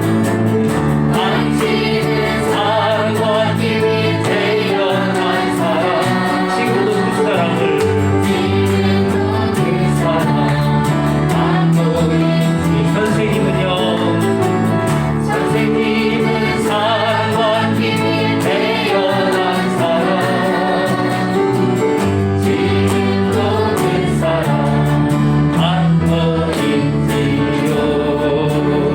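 A group of voices singing a worship song together over a steady instrumental accompaniment, with the chords changing every couple of seconds.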